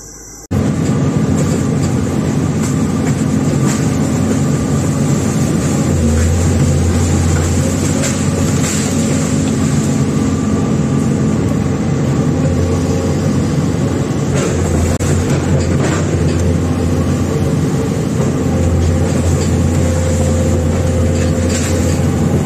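Komatsu hydraulic excavator's diesel engine and hydraulics running under load, heard loud from inside the cab. It starts abruptly about half a second in, and the low engine note swells in several spells as the machine works.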